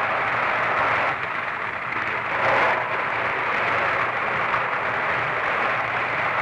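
Seawater rushing out of a rock drill hole that has just broken through to the sea, a steady hissing rush with a low hum beneath it. It briefly surges about two and a half seconds in.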